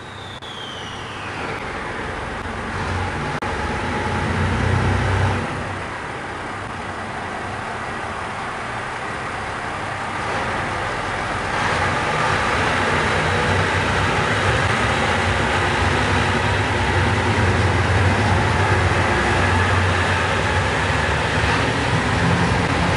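JR Shikoku 2700 series diesel train pulling out, its underfloor diesel engines running under power as the cars roll past, the rumble growing louder, with a clear step up about eleven seconds in.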